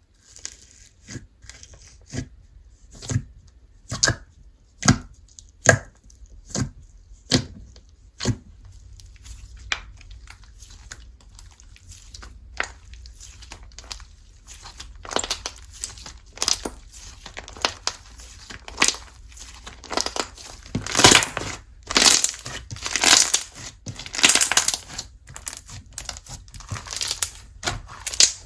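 Slime being worked by hand: sharp pops about once a second for the first eight seconds, then denser crackling and squishing that grows louder in the second half.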